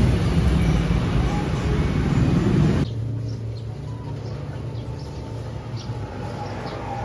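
Steady street traffic noise with a low rumble, which cuts off abruptly about three seconds in. A much quieter ambience follows, with faint bird chirps.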